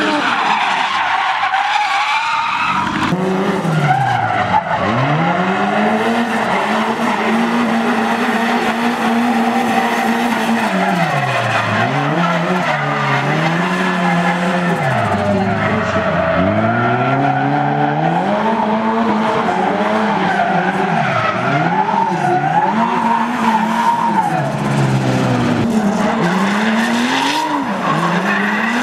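Drift cars' engines revving hard, the pitch climbing and dropping again and again as the throttle is worked, over tyres squealing and skidding through the slides.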